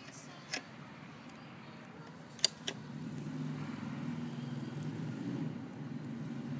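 A few sharp clicks, then from about three seconds in a low, steady engine rumble like a motor vehicle running.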